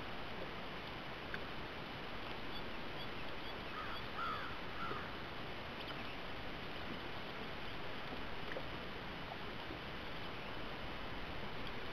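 Steady outdoor background hiss with a few faint, short bird calls about four seconds in.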